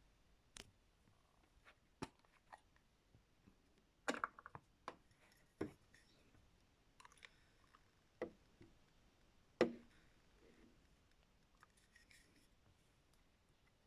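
Scattered clicks and knocks from a toy washing machine being handled, about a dozen spread out with quiet between, the loudest a knock a little before two-thirds of the way through. There is no steady motor or water sound.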